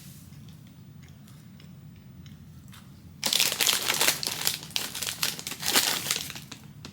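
Plastic snack packaging crinkling loudly as it is handled and torn open, starting about three seconds in and lasting about three seconds.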